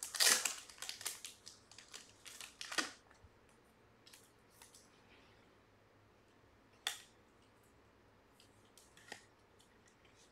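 A trading card being handled and fitted into a plastic magnetic card holder: rustling and crinkling for about three seconds, then two sharp plastic clicks, about seven and nine seconds in.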